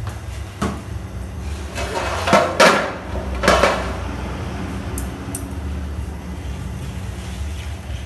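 A utensil knocking and scraping against a large aluminium cooking pot as sugar and salt are stirred into the water, with a few louder clatters between about two and four seconds in and two sharp clicks around five seconds. A low steady rumble runs underneath.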